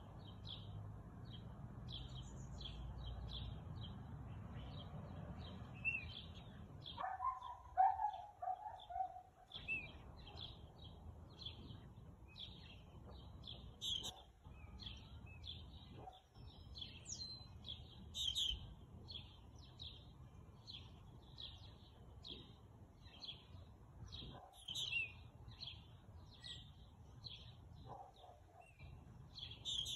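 Small songbirds chirping repeatedly, short high chirps coming two or three times a second over faint background noise. About eight seconds in there is a brief, louder, lower-pitched cry.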